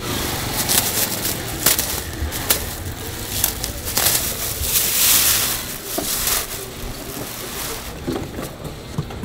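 Thin plastic bags and sheeting crinkling and rustling as gloved hands handle them, with many short crackles and a louder stretch of rustling about four to six seconds in.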